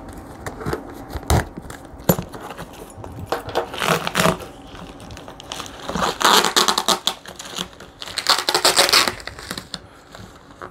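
Plastic packing tape being slit with a key and peeled off a cardboard box: a few sharp clicks and scrapes, then two longer tearing, crinkling stretches about six and eight and a half seconds in.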